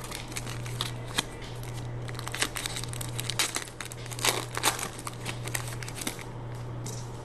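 Donruss Optic cello pack's wrapper crinkling and tearing as it is ripped open by hand, a run of sharp crackles that thin out about six seconds in.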